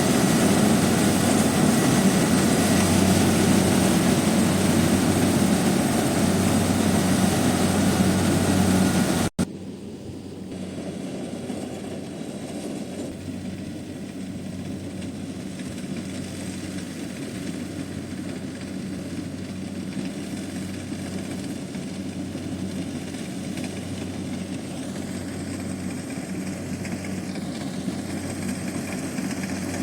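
Kubota DC70 combine harvester's diesel engine running steadily under load, loud and close, with a low hum. About nine seconds in the sound cuts off abruptly and the harvester's engine runs on, quieter.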